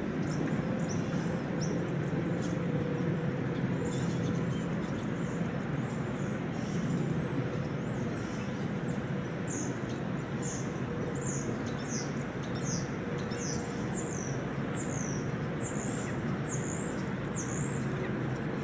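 A small bird chirping over and over, short high notes that fall in pitch, scattered at first and then about three every two seconds in the second half, over a steady background rush with a faint hum.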